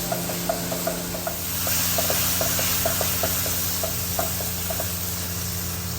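Onions and garlic paste sizzling in oil in a wok karahi while being stirred, the spoon knocking against the pan several times a second. The sizzle swells about a second and a half in and eases off again. A steady low hum runs underneath.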